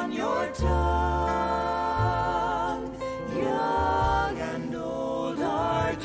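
Slow Christmas song playing, with long held melody notes that waver slightly over a low bass line.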